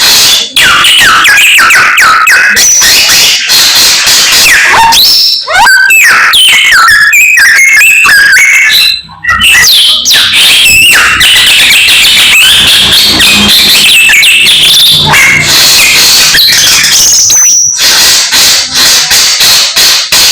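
Samyong songbird in full, nonstop song: a rapid, varied run of chirps, whistled glides and trills, with a brief break about nine seconds in.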